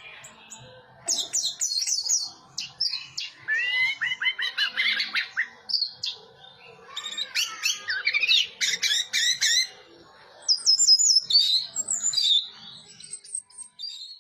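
Orange-headed thrush singing a varied song of rapid, swooping whistled notes and chatters, in several bursts a few seconds long with short pauses between them.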